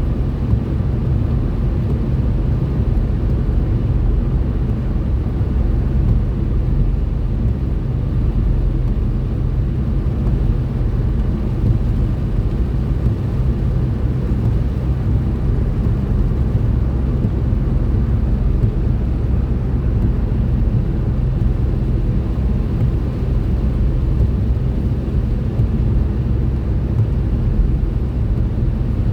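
Steady low rumble of tyres and engine heard inside a car's cabin while driving on a snowy motorway.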